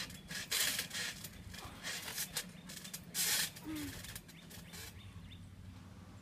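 A few short hissing bursts of strained breath from a person held in a chokehold, over the faint steady hum of a lawnmower.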